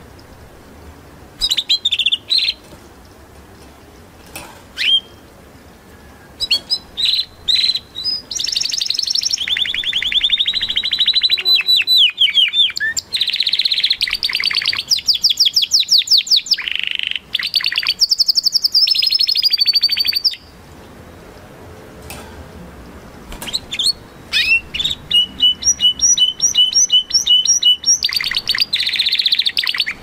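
Spanish Timbrado canary singing. It opens with a few short phrases, then sings a long run of rapid trills, pauses for about three seconds, and comes back with a run of evenly repeated notes, about three a second.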